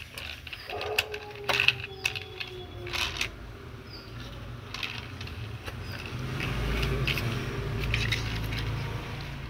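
Plastic toy vehicles handled and set down on a concrete floor: scattered sharp plastic clicks and knocks, with a low rumble over the last few seconds.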